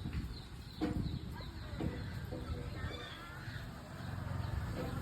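Domestic chickens clucking: a few short calls, then a quick run of clucks in the middle. A low steady rumble builds near the end.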